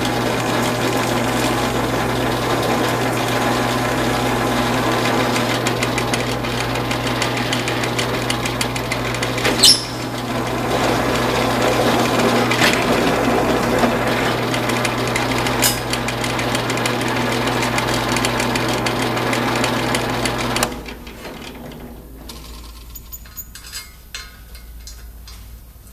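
Milling machine running with a countersink bit cutting into a steel angle rail, a steady hum under the noisy cutting with a couple of sharp clicks. The machine stops abruptly about three-quarters of the way through, leaving faint clicks of metal chips being brushed off the rail.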